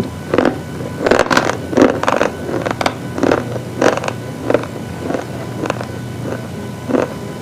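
Close-up crunching of something brittle being bitten and chewed, the kind of slate pencil or chalk cube crunching this compilation is made of: irregular sharp crunches about two a second, louder in the first few seconds and softer toward the end.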